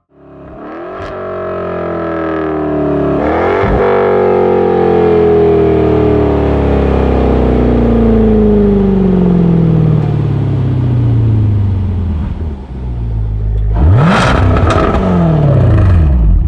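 Jaguar F-Type's supercharged 5.0-litre V8 running loud. Its note rises, jumps briefly about three and a half seconds in, then falls slowly for about nine seconds. Near the end a quick rise and fall of revs comes with sharp crackles.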